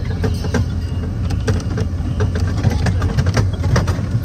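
Open-sided ride-on train running over a bumpy track: a steady low engine drone with frequent short rattles and knocks from the car as it jolts along.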